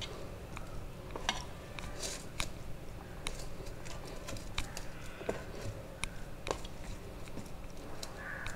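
Hand kneading wheat-flour dough in a stainless steel bowl: irregular light clicks and taps as the hand and dough knock against the bowl, over a steady low hum.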